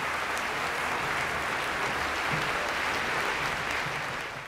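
Audience applauding steadily, a dense wash of clapping that stops abruptly at the very end.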